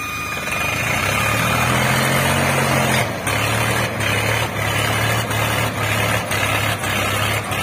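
New Holland 3630 tractor's three-cylinder diesel engine working hard to haul two loaded sugarcane trolleys through mud. The engine note rises over the first couple of seconds, then from about three seconds in it pulses, dipping and recovering about every half second as it labours under the load.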